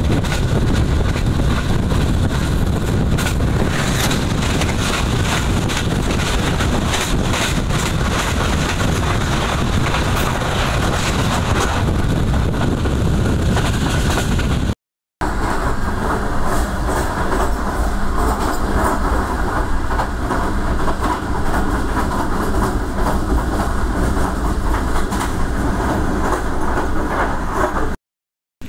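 Passenger coaches of the Green Line Express running at speed: a steady rumble of wheels on rail with many quick clicks and the rush of air past the open side of the coach. It is broken by a short silent gap about halfway, after which the sound has less hiss.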